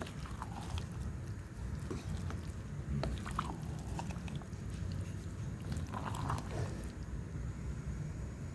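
Thick stew simmering in a pot: irregular soft pops and clicks of bubbling sauce over a steady low rumble.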